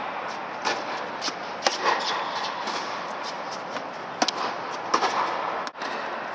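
Tennis balls being struck with rackets: a handful of sharp pops at irregular intervals, with a pause of about two seconds in the middle, over a steady background hiss.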